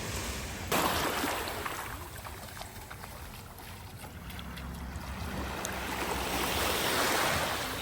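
Sea waves washing onto the shore: one surges in suddenly about a second in and fades, and another builds and peaks near the end.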